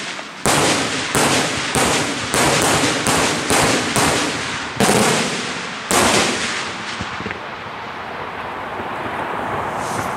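Daytime aerial firework shells bursting overhead in a rapid series of loud bangs, about ten in six seconds, each trailing an echo. After the last bang the rumble fades away.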